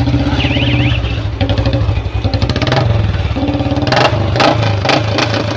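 Old Royal Enfield Bullet single-cylinder motorcycle engine running through its aftermarket silencer, with a fast, even exhaust beat and a few sharp cracks around four to five seconds in.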